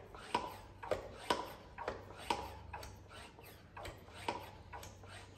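Hand pump on a Motive Power Bleeder tank being stroked, giving a sharp click with a short ring about twice a second, as it keeps oil pressurized at about 20 psi to prime an engine's oil system.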